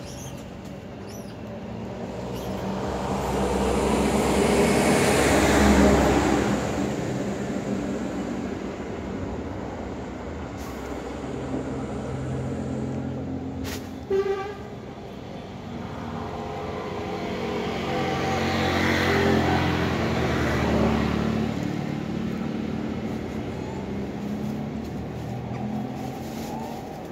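Two motor vehicles pass along the road one after the other, each building up and fading away; the first peaks about six seconds in and the second about twenty. Between them, about halfway through, comes one brief high toot.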